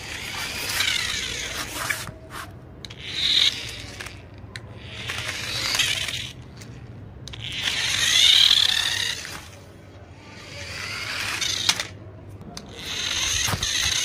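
Small electric motor and plastic gearbox of a toy RC jeep whining in about six short bursts, each rising and falling in pitch, as the car is driven off and stopped again and again.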